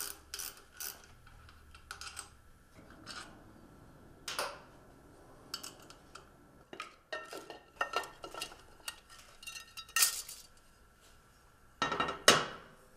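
Scattered metal clinks and clatter of a wrench, loose bolts and the chrome rocker box cover being unbolted and lifted off a motorcycle V-twin's cylinder head, with a few louder clanks among lighter taps.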